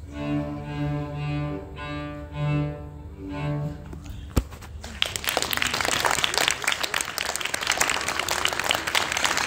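Two cellos bowing the closing notes of a duet, stopping about four seconds in. A single sharp knock follows, then an audience applauding.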